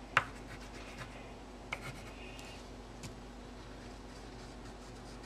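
Green colored pencil rubbing and scratching across paper in colouring strokes, with one sharp tap just after the start and a few fainter taps later.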